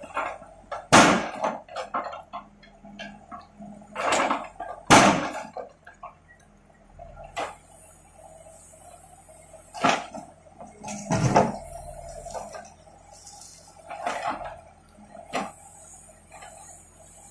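Escorts backhoe loader's steel bucket knocking and scraping against broken concrete and rubble, sharp clatters coming about a second in, around four to five seconds, and again near ten and eleven seconds, over the steady hum of its diesel engine.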